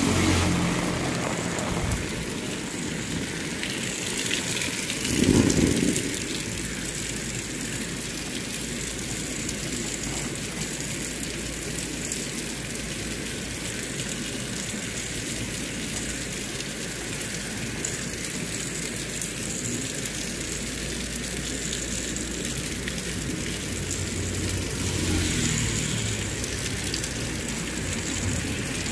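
Heavy tropical rain falling steadily on a paved road and leaves, a continuous hiss. A brief low thump about five seconds in is the loudest moment, and a vehicle engine swells faintly near the end.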